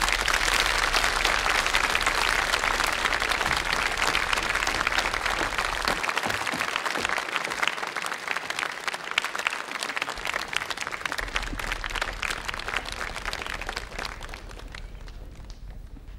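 Large audience applauding after a song ends, the clapping fading away near the end.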